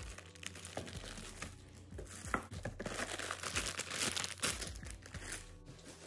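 Plastic packaging crinkling and rustling as a wrapped computer part is handled, with irregular sharp crackles that are busiest in the middle.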